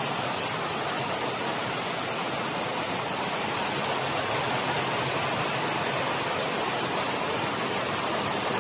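Heavy typhoon rain pouring down in a steady, unbroken rush.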